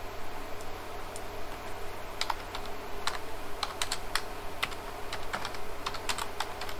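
Typing on a computer keyboard: irregular runs of keystrokes starting about two seconds in, over a steady low hum.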